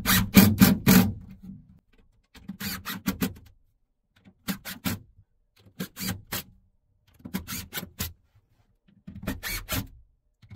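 Cordless drill driving screws into wood in six short bursts with brief pauses between them.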